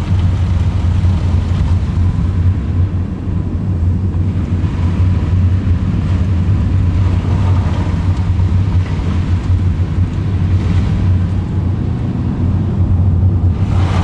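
Steady low rumble of a car driving, heard from inside the cabin: engine and tyre noise on a wet road. A brief swell of hiss comes near the end.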